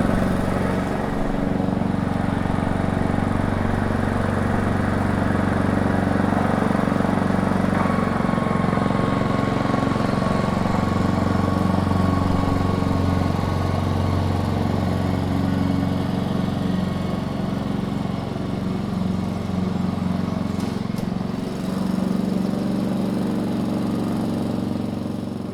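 Lawnmower engine running steadily with a low hum, its pitch and level wavering slightly; it fades out near the end.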